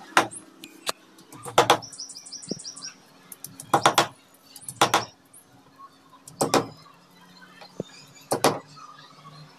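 Hammer tapping plastic wall plugs into drilled holes in a wall: sharp knocks, often two close together, every second or two. A bird chirps a quick run of notes about two seconds in.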